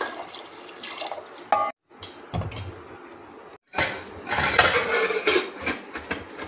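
Water poured into a pressure cooker, then metal clattering and clanking as the cooker's lid is handled and fitted on, loudest a few seconds in. The sound is broken by two brief silent gaps.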